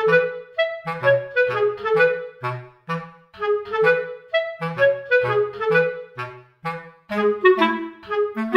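Background music: a bouncy melody of short, detached notes over a lower accompanying line.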